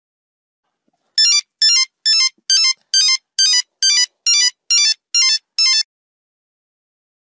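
A Nokia 3315 mobile phone's monophonic ringtone: about a dozen short, buzzy beeping runs of notes, each falling quickly in pitch, repeated about twice a second. It starts about a second in.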